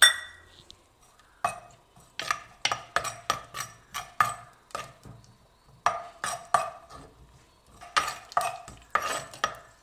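A steel spoon stirring and scraping vadagam in oil in a clay pot, in three spells of short strokes about two or three a second. It opens with one sharp ringing clink of metal. There is little sizzle yet, because the thick clay pot is slow to bring the oil up to frying heat.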